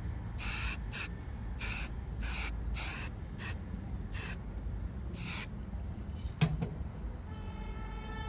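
Aerosol can of anthracite spray paint hissing in short bursts, about nine in the first five seconds, as light coats are built up on a repair. A single click follows about six seconds in.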